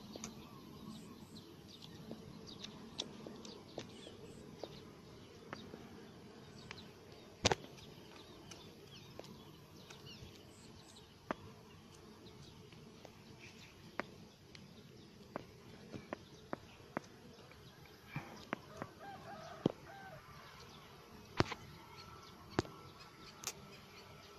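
Quiet rural outdoor ambience with scattered sharp clicks and taps, and a chicken calling a few times about three-quarters of the way through.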